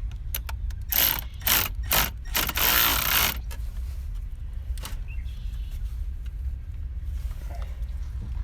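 Ratchet wrench working a nut, in four loud ratcheting strokes from about a second in to just past three seconds, the last one the longest, then scattered light clicks.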